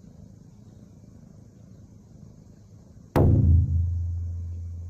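A single deep booming hit, an edited-in comic sound effect, lands about three seconds in and its low tone dies away slowly. Before it there is only faint room noise.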